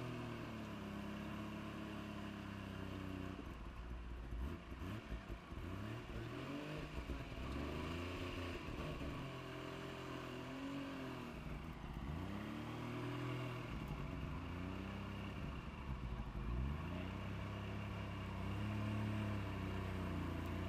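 Suzuki 4x4's engine revving up and down, again and again, as it works its way up a steep rutted climb under load. The revs rise and fall every few seconds.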